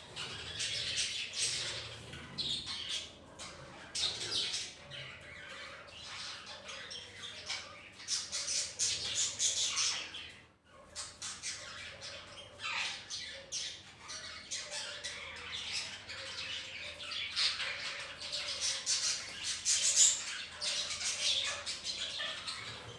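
A colony of budgerigars chattering, warbling and squawking all together in a dense, continuous stream of short high-pitched calls, with a brief lull about halfway through.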